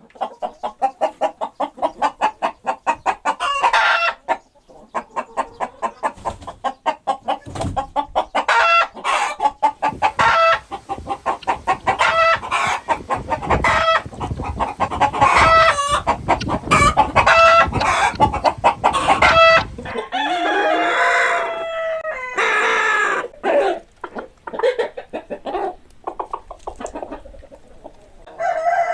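Hens clucking in fast runs of short notes, each run ending in a drawn-out squawk. From about twenty seconds in come longer, wavering calls and scattered clucks.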